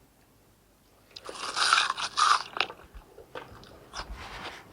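Biting into a toasted white bread and watermelon sandwich: a loud crisp crunch of the toast about a second in, lasting about a second and a half, followed by quieter crunching chews.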